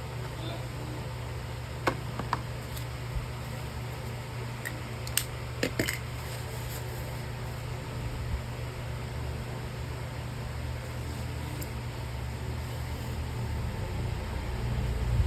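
Steady low hum with a handful of sharp clicks and taps about two seconds in and again around five to six seconds in; the low rumble grows louder near the end.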